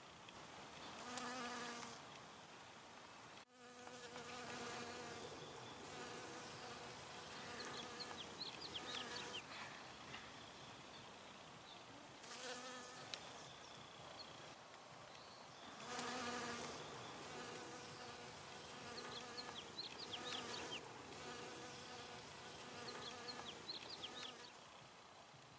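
Bees buzzing: a steady hum of wings, with a louder buzz swelling and fading several times as single bees fly close past the microphone.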